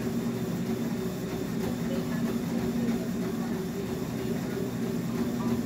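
Treadmill running under a runner: a steady motor and belt hum with regular footfalls thudding on the deck.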